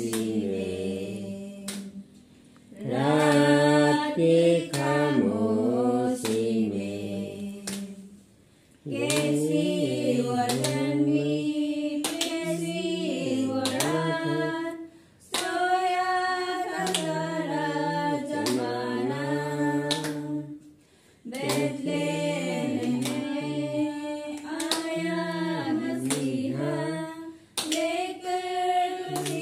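A small group of women singing a hymn together without accompaniment. The song comes in long held phrases with short pauses between them.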